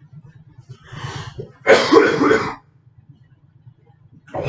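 A person coughing and clearing their throat close to the microphone: a short burst about a second in, a louder one just after, and another near the end.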